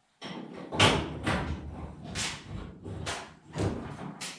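A series of about six irregular knocks and thuds, a second or less apart, the loudest about a second in, from parts being handled during work on a car.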